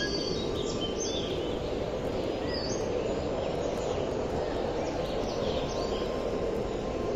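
Steady outdoor background noise, an even rushing hiss, with birds chirping and calling over it in short, scattered notes.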